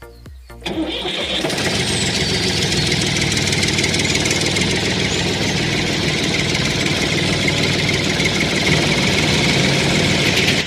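A small motor-driven machine starts about a second in and runs steadily and loudly, then cuts off abruptly near the end.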